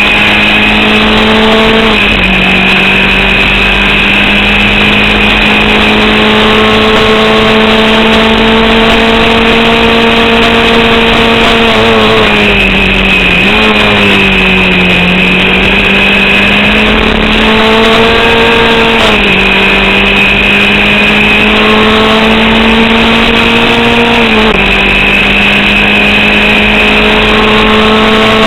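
Formula Vauxhall 8-valve single-seater engine at racing speed, heard from on board. Its pitch climbs slowly and drops sharply four times at shifts or lifts, with a longer dip about halfway through. The engine was misfiring and short of power from an alternator/battery fault.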